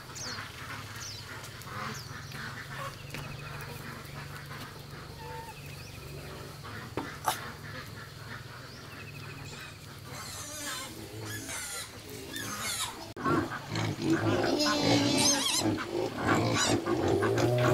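Quiet outdoor background with a low steady hum, a few bird chirps and a single sharp click; about two-thirds of the way through, louder animal grunts and calls take over, with a high squealing trill shortly after.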